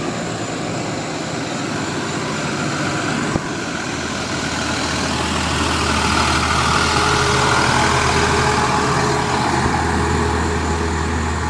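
Fire truck driving past. Its low engine drone comes in about a third of the way through, and the engine and road noise swell to a peak about two-thirds through before easing off.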